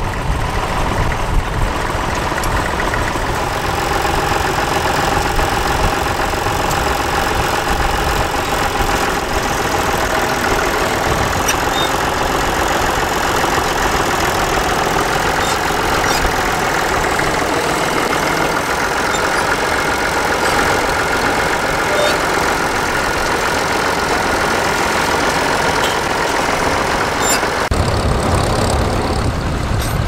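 Small vintage tractor engine running steadily under load as it pulls a mounted plough through the furrow. A little before the end, the sound changes to a deeper, heavier engine note.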